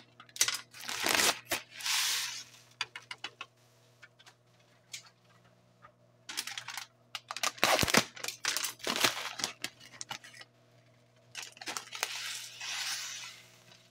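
Packaged rice and its seasoning being poured from paper packaging into a pot of water, with the packaging crinkling and tearing in several bursts of a second or two each.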